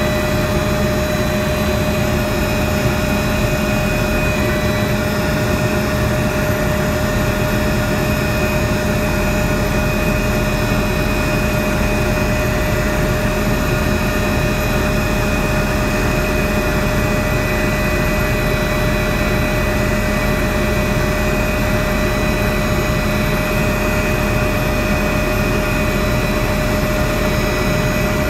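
Helicopter in flight heard from on board: a steady, loud engine and rotor drone with constant whining tones over a low rumble.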